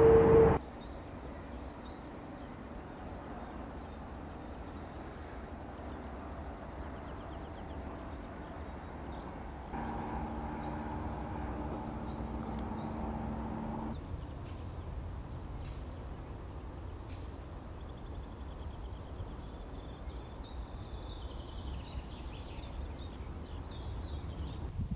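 Outdoor ambience: a low steady background rumble with small birds chirping faintly on and off. A loud steady hum cuts off about half a second in.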